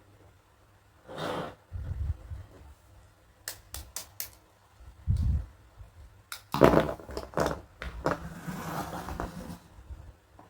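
Plastic toy dentist-kit pieces and packaging being handled: a short rustle, a couple of dull thumps, a quick run of sharp clicks, then a longer stretch of clicking and rustling near the end.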